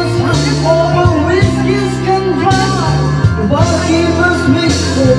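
A man singing karaoke into a handheld microphone over a loud backing track with a steady, stepping bass line.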